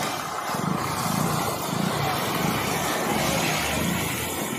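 Steady hiss of rain and splashing floodwater, with the low engine rumble of an Ashok Leyland bus wading through the flooded road.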